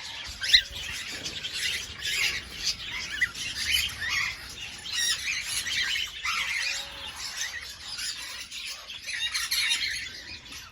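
A flock of cockatiels chirping and squawking continuously, many birds calling over one another, with one sharp, loud squawk about half a second in.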